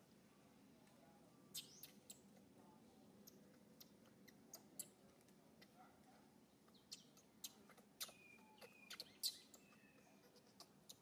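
Faint, scattered high chirps and squeaks with sharp little clicks, including one short held squeak about eight seconds in.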